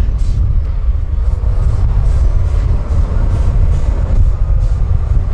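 Tatra 815 8x8 truck's diesel engine running under load as the truck crawls over steep sandy terrain, a steady heavy low rumble.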